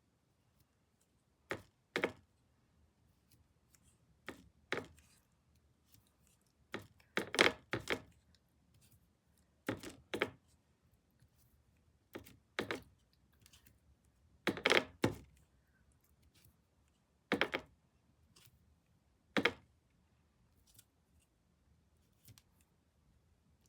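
Irregular sharp clicks and taps, about a dozen, some in quick pairs, from small hard objects being handled and set down on a table.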